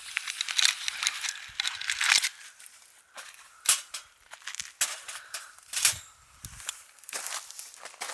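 Irregular crinkling and rustling with scattered sharp clicks from things being handled, the loudest clicks about 3.7 and 5.9 seconds in.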